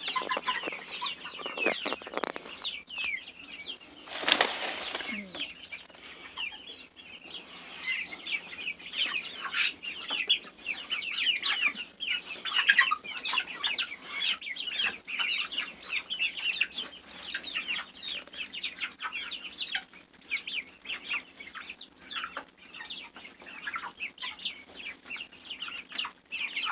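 A flock of young chickens calling continuously with many overlapping short, high, falling peeps and cheeps as they feed on mealworms. One louder, harsher squawk comes about four seconds in.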